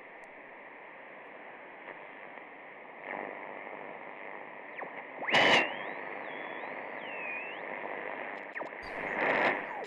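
Radio static, like a shortwave set being tuned: a steady hiss with two louder crackling surges, about five and nine seconds in, and thin whistling tones sliding up and down.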